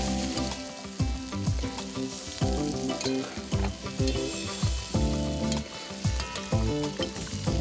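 Chicken pieces and sliced onions frying in hot oil in a metal pot, sizzling steadily while a metal ladle stirs them. Background music with a beat plays over it.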